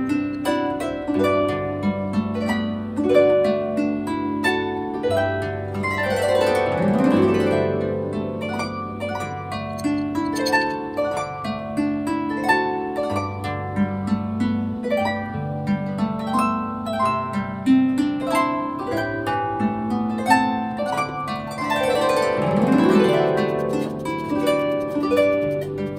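Harp background music: plucked melody notes over a held bass line, with two sweeping runs across the strings, about six and twenty-two seconds in.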